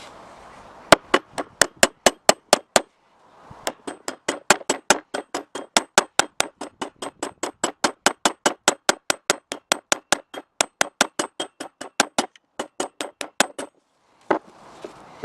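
A hammer striking metal in quick, even taps, about four or five a second, each with a short metallic ring. There is a brief pause about three seconds in.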